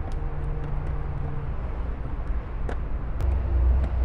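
Pliers tightening small nuts clockwise, giving a few faint light clicks. A steady low hum and rumble runs underneath, swelling near the end.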